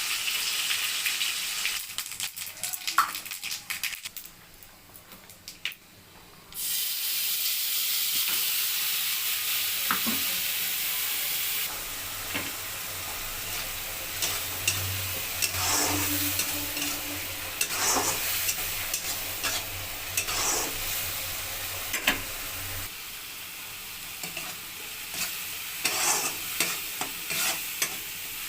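Food frying in a pan with a steady sizzle, stirred with a utensil that clicks and scrapes against the pan. The sizzle drops away for a couple of seconds about four seconds in, then resumes.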